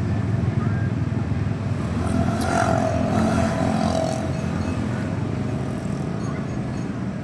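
A road vehicle passing, its engine running as a steady low rumble that swells about two to four seconds in, with a held mid-pitched tone at its loudest.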